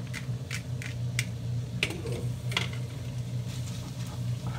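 Cooked black pasta tipped from a plastic colander into a frying pan of shrimp and squid and turned with a spatula: scattered soft knocks and clacks against the pan over a steady low hum.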